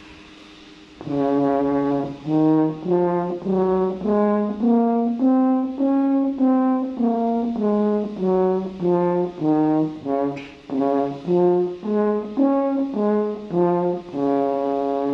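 Double French horn playing a one-octave A-flat major scale in separate tongued notes, starting about a second in, climbing and then coming back down, and ending on a long held low note.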